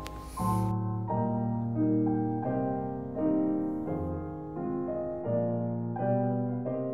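Slow, gentle solo piano background music, with a new note or chord about every three-quarters of a second.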